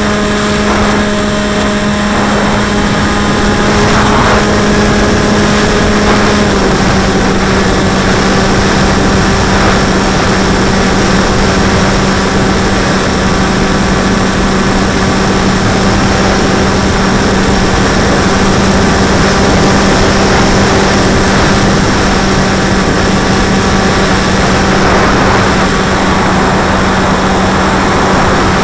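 Electric motor and propeller of a radio-controlled model plane, heard from its onboard camera: a loud, steady whine with wind rush, dropping slightly in pitch about six and a half seconds in as the throttle eases.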